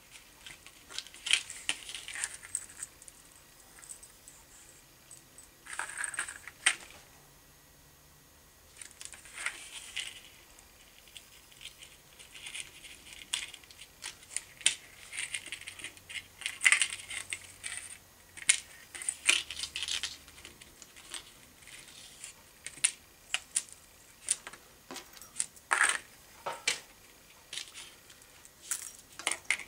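Small metal snaps, swivels and hooks of a wire fishing rig clicking and clinking as they are handled on a tabletop, in irregular clusters of sharp ticks with short quiet gaps between them.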